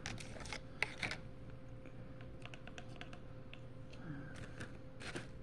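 Light clicks and taps as a paintbrush and a plastic watercolour paint tray are handled, a quick cluster about a second long at the start, then scattered single taps.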